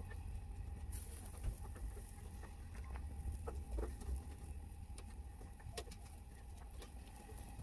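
Marinated beef short ribs sizzling and crackling on a gas grill, with occasional light clicks of metal tongs against the grate as the strips are turned. A steady low rumble sits underneath.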